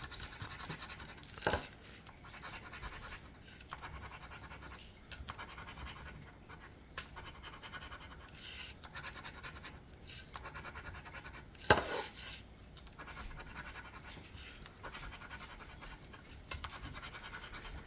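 A paper lottery scratch-off ticket being scratched: a run of short scraping strokes across the coating, with a sharper tap about a second and a half in and another about twelve seconds in.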